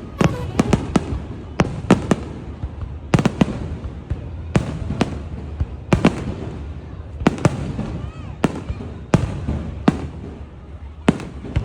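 Fireworks shells bursting overhead, a steady run of sharp bangs about once a second at irregular spacing, each echoing briefly.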